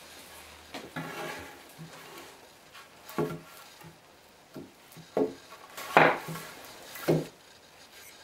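A long reclaimed spruce board knocking and sliding on a wooden workbench as it is laid down and shifted into place: a handful of separate wooden knocks and clatters, the loudest about six seconds in.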